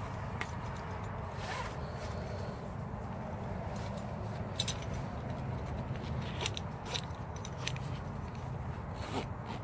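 Cloth belt and buckle handled and adjusted at the waist: rustling with about seven brief, scattered clicks, over a steady low background rumble.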